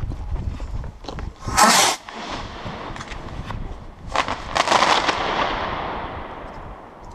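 A single firework going off inside a concrete cooling tower. A loud burst comes about a second and a half in. A second, longer burst follows around four to five seconds in, and its echo fades away slowly over the next two seconds.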